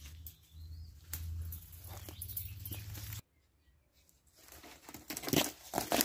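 Leaves, twigs and branches rustling and crackling under a person's feet and hands as he clambers down through thick forest undergrowth. The sound cuts off abruptly about three seconds in, then louder crunches of dry leaves and twigs come near the end.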